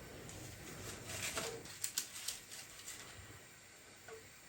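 Faint bird calls, with brief low notes near the start and near the end, amid a few light clicks and taps.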